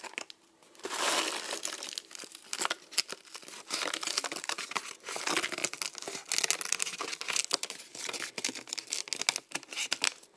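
Plastic packet of mini marshmallows crinkling and rustling as it is tipped and shaken to pour the marshmallows into a mug of hot chocolate.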